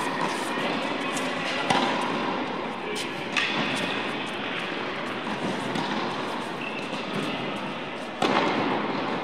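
Tennis ball struck by racquets in a rally, four sharp hits a second or two apart, echoing in an indoor tennis hall; the last and loudest, near the end, is a serve.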